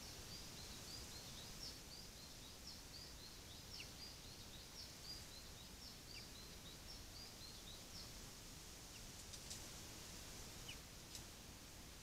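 Faint songbird singing a long run of short, high, downward-slurred notes, about three a second, that stops about eight seconds in; a few faint sharp ticks follow near the end.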